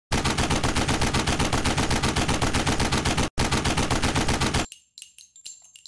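Rapid automatic gunfire, machine-gun style, at about nine shots a second, with a brief break about three seconds in, stopping abruptly well before the end; a few faint ticks follow.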